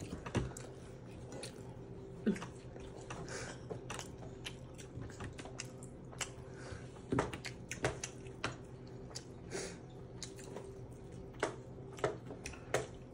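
Mealtime eating sounds: a metal fork clicking and scraping on a ceramic plate at irregular moments, with chewing in between, over a low steady hum.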